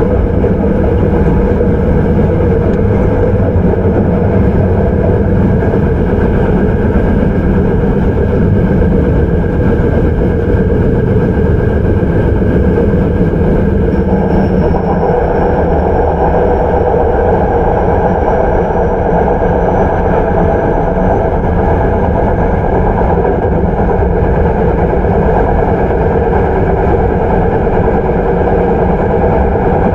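Hankyu 9300 series electric train with Toyo IGBT-VVVF traction, heard from inside the car while running between stations: a steady loud rumble of wheels and motors. About halfway through, a faint high whine begins and slowly rises in pitch, and the running noise grows louder.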